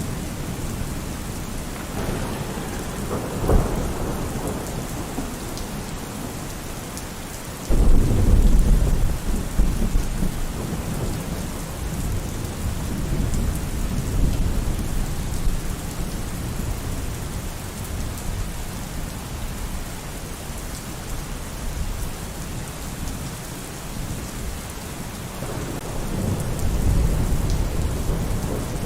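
Steady heavy rain with rolling thunder: a sudden loud thunderclap about eight seconds in that rumbles on for several seconds, with lesser rumbles before it and near the end.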